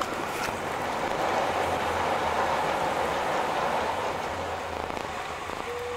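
Cabin noise of a Boeing 747-400 rolling down the runway after landing: a steady engine and rolling noise over a low hum, swelling after about a second and then easing. A brief steady tone sounds near the end.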